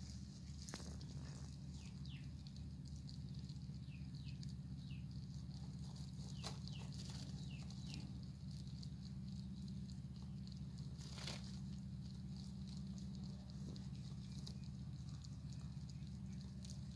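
Baby cottontail rabbits shifting and scratching in dry hay, small scattered rustles with one louder rustle about two thirds of the way in, over a steady low hum.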